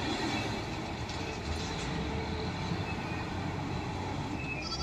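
Wheel loader's diesel engine running steadily as the machine maneuvers at a coke pile: a low drone under a noisy wash.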